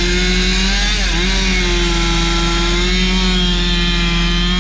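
Gasoline chainsaw running at high speed while cutting a log; its pitch dips briefly about a second in and then holds steady again.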